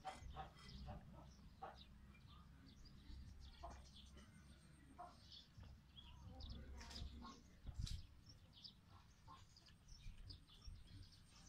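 Faint, scattered short bird chirps over a low background rumble.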